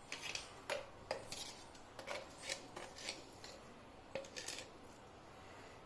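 Faint clinks and scrapes of a teaspoon against a container and bowl, a few light taps and short scraping strokes as salt is measured into the dry ingredients.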